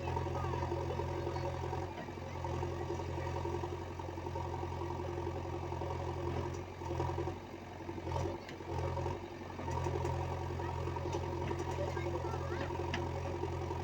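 Heavy machine's diesel engine running with a steady low hum that dips out briefly a few times near the middle.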